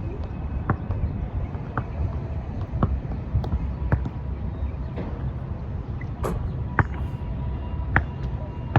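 Wind buffeting the microphone with a low rumble, while a basketball bounces in short, sharp thuds at irregular intervals, about one every second or so.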